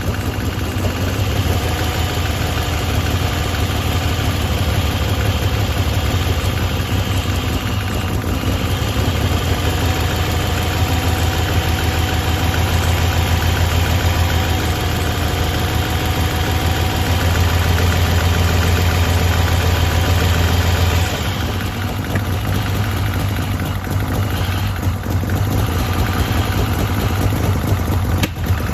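Ford Pinto four-cylinder engine of a turbo Cortina running steadily at idle, easing off a little about two-thirds of the way through.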